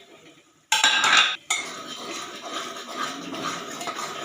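Metal spoon stirring and scraping in a pan of ground masala paste cooking in oil, with a loud scrape about a second in followed by steady stirring.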